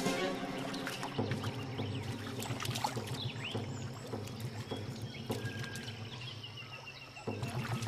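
Water splashing and sloshing in irregular bursts as two male platypuses grapple and thrash at the river's surface.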